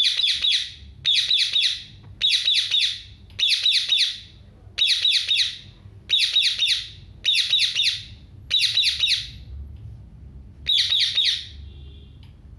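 A parrot squawking in short bursts of rapid harsh notes, nine bursts spaced about a second apart, stopping shortly before the end.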